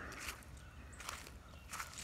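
Faint footsteps crunching and rustling through dry fallen leaves, with a couple of slightly louder crunches about a second in and near the end.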